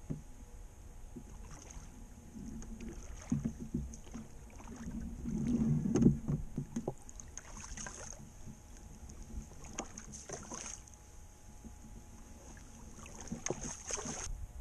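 A small rowing skiff worked through shallow water: knocks and a low rumble in the hull in the first half, loudest about six seconds in, then an oar used as a pole, its blade plunging and splashing three times.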